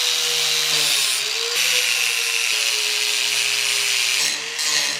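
Power grinder grinding down a fresh weld bead on a steel windshield frame: a steady motor whine under a harsh hiss. It eases off briefly about four seconds in, then bites again.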